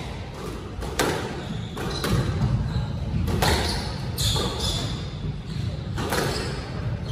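Squash rally: the ball struck by rackets and slapping off the walls in sharp knocks every second or so, echoing in the court, with short sneaker squeaks on the wooden floor.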